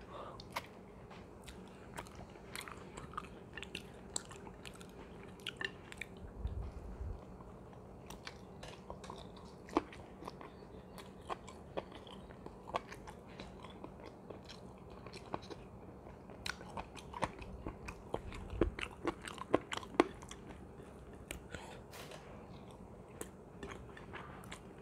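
Close-miked chewing and mouth sounds of a person eating chicken and rice by hand: an irregular run of short wet clicks and crunches, a few of them louder, with a couple of low bumps.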